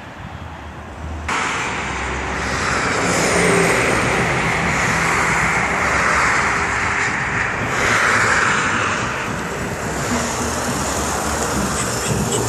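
Motorway traffic passing at speed: a steady rush of tyres and engines that swells as vehicles go by. It gets suddenly louder about a second in.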